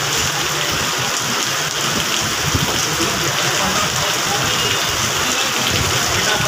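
Heavy, stormy rain pouring down, a steady dense hiss without a break.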